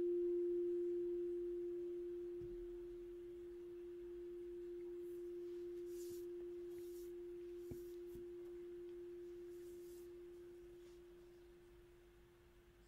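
Crystal singing bowl ringing out with one steady, pure tone that slowly dies away until it is faint near the end.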